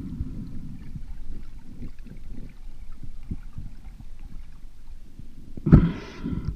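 Muffled underwater rumble of water moving past a camera held by a swimming spearfisher, with a brief louder burst about a second before the end.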